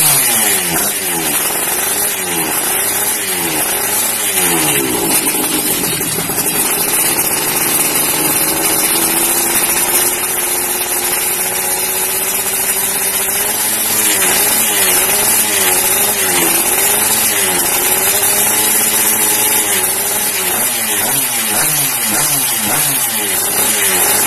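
Two-stroke underbone motorcycle engine, a road-race-tuned Yamaha F1ZR, revving hard. Its pitch swoops up and down again and again, with a longer steady climb in the middle.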